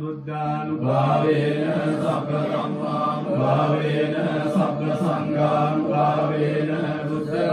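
Theravada Buddhist monks chanting in Pali, a continuous recitation held on one steady low pitch.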